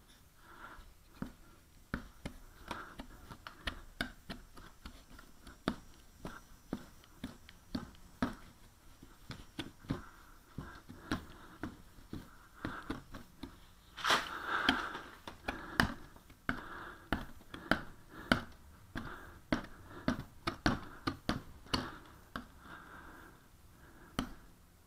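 Putty knife tooling glazing putty along a window sash's muntins: a string of irregular light clicks and scrapes, with a louder, longer scrape about fourteen seconds in.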